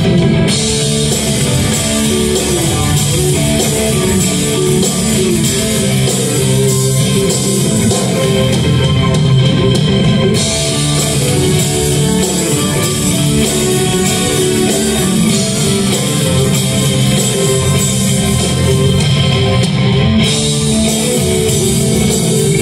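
Live rock band playing, with guitar and bass most prominent, heard from the audience through a phone's microphone.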